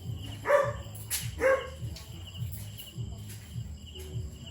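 Belgian Malinois barking twice in quick succession, about half a second and just over a second in.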